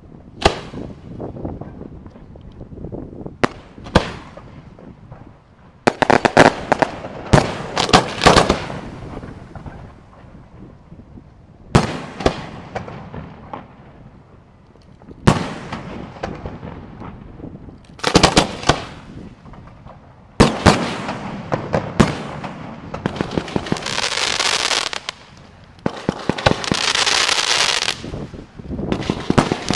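Aerial fireworks going off: sharp shell bangs come singly and in quick clusters, with echoing rumble between them. From about three-quarters of the way in there is a long stretch of dense crackling.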